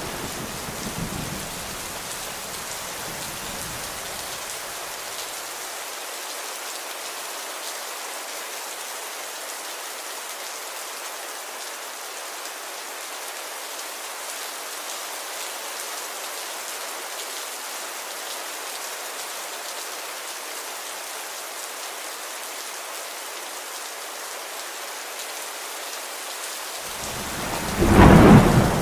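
Steady heavy rain. A low thunder rumble fades out over the first few seconds, and a new roll of thunder rises about a second before the end.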